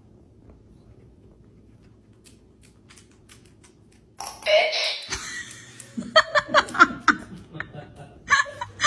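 Faint clicks of a dog's claws on a hard floor, then about four seconds in a dog's recordable talk button goes off with a short recorded word, followed by a person laughing.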